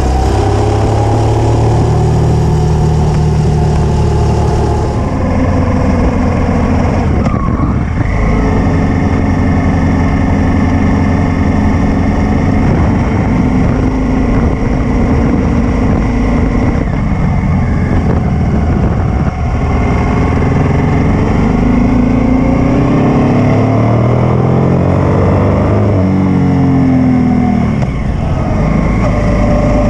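Honda Africa Twin 750 motorcycle's V-twin engine running under way, its pitch rising and falling as the revs change through the bends, over steady wind and road noise.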